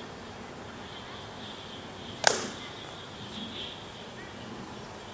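One sharp snap about two seconds in, from a Chen-style tai chi performer's explosive fajin release, over a steady outdoor hiss with faint chirping.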